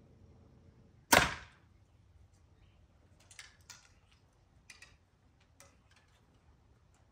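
An 82-pound Hoyt RX7 compound bow fired once about a second in: a single sharp crack of the shot with a short ringing tail. A few faint clicks follow.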